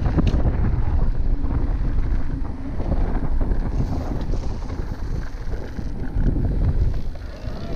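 Wind buffeting an action camera's microphone over the rumble of knobby mountain-bike tyres on a dirt trail, as an electric mountain bike rides the singletrack at speed. Occasional sharp knocks come from the bike jolting over the ground, one about a third of a second in.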